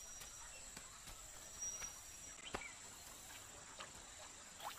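Faint jungle ambience: a steady high-pitched insect drone, with a few faint ticks and short chirps scattered through it.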